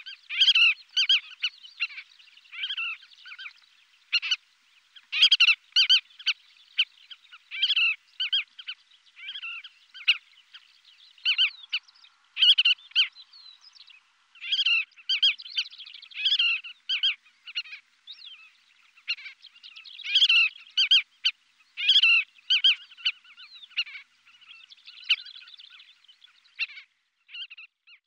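Collared pratincole calls: short notes in quick runs of several at a time, with brief pauses between the runs.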